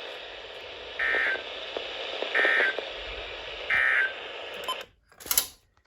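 Three short bursts of SAME digital data tone over NOAA Weather Radio, about a second and a half apart: the End of Message code that closes the weekly test broadcast, heard over steady radio hiss. The hiss cuts off suddenly about a second after the last burst, followed by a brief crackle.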